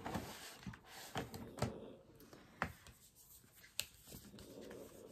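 Faint handling noises: soft rustling with scattered light clicks and knocks as a book is reached for and picked up.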